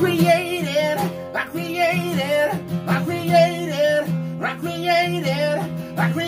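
Acoustic guitar strummed steadily while men sing a wordless line over it in long, wavering notes.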